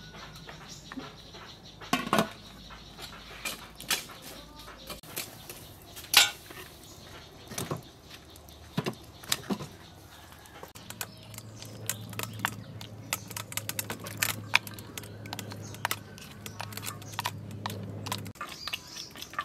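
Outdoor cooking sounds: a metal spoon and ladle clinking against a steel pot and a stainless steel mixing bowl, with scattered sharp clicks and occasional bird or chicken calls. A low steady hum runs under the second half.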